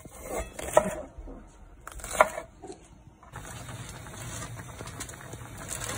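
A kitchen knife chops green onions on a bamboo cutting board, a few sharp knocks in the first couple of seconds. From about three seconds in, tteokbokki sauce simmers in a frying pan with a steady bubbling sizzle.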